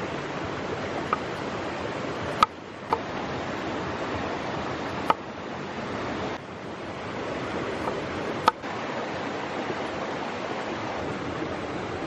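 A chef's knife cutting potatoes on a wooden board, about five sharp knocks of the blade striking the board at irregular intervals, over the steady rush of a waterfall and river.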